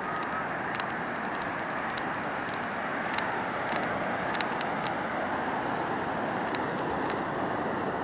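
Sea surf breaking and washing up a sandy beach: a steady rushing noise, with faint scattered clicks over it.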